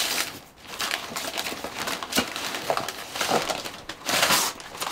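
Thick brown kraft paper wrapping being torn and crumpled off a boxed EV charger unit: a run of irregular rustling rips and crackles, the loudest about four seconds in.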